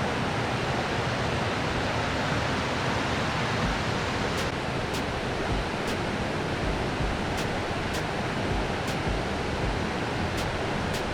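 Waterfall rushing steadily. From about four seconds in, a few faint, high ticks come at irregular intervals of roughly half a second to a second.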